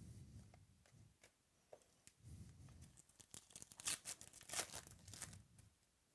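A trading-card pack wrapper being torn open and crinkled: a faint cluster of sharp rips and crackles about three to five seconds in, with a few scattered clicks of handled cards before it.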